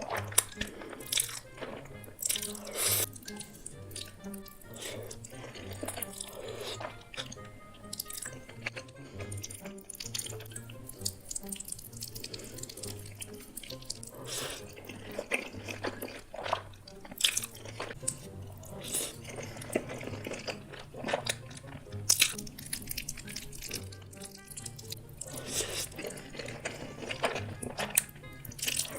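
Background music with a steady bass beat over close-miked, wet eating sounds: chewing, smacking and slurping mouth noises.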